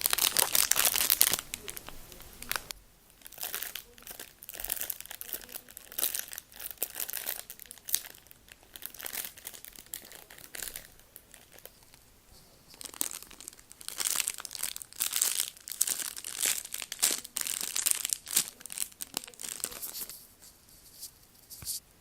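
Foam heart squishy being squeezed and handled close to the microphone. It makes irregular bursts of rustling, crackly noise, loudest in the first two seconds, then repeated squeezes through the rest.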